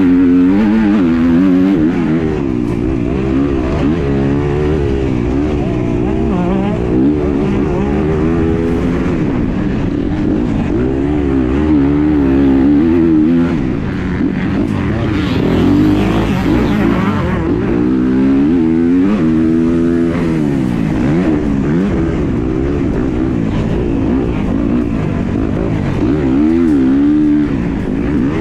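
Dirt bike engine heard from the bike itself at racing pace, its pitch rising and falling over and over as the rider opens and closes the throttle through the track's turns and straights.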